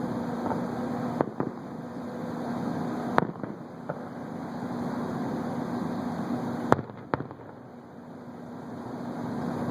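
Fireworks bursting in the distance: a handful of sharp bangs, some in quick pairs, about a second in, around three seconds and around seven seconds, the loudest near seven seconds. A steady low hum runs underneath.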